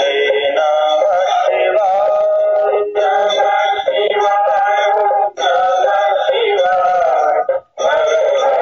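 Hindu devotional song to Shiva: a sung vocal line over instrumental backing, in phrases that break off briefly three times, the last break almost silent near the end.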